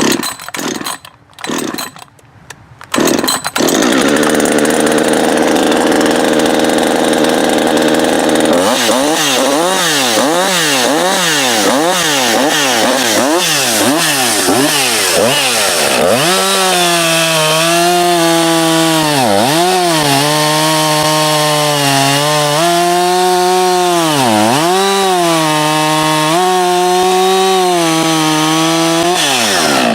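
Husqvarna 562 XP two-stroke chainsaw starting about three seconds in, then revving up and down repeatedly. From about halfway it runs at full throttle cutting wood with the freshly sharpened chain, its pitch dipping several times under load, then drops back near the end.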